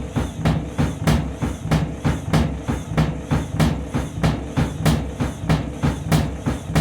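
Washing machine drum banging rhythmically, about two knocks a second, as it tries to spin a tangled, badly out-of-balance load of bedding. The pounding is hard on the drum bearings.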